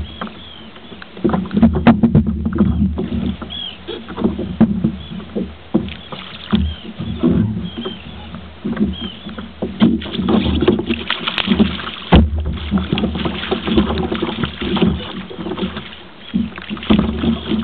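Irregular knocks and clatter from a caught bluefish and gear being handled aboard a fishing kayak, over a steady low rumble. The knocks come thickest about ten seconds in.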